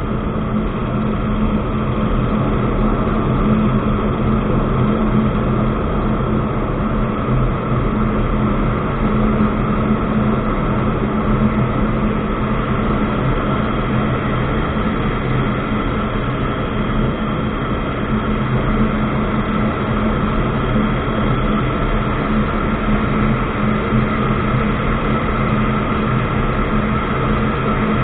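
Ultralight aircraft engine and propeller running steadily, an even drone at an unchanging pitch.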